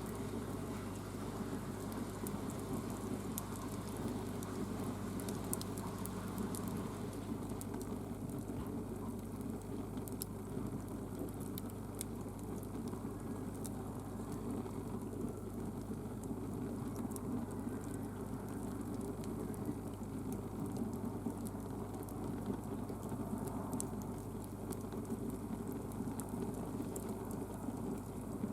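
Wood fire burning: the firewood crackles with scattered sharp pops over a steady rush of flame.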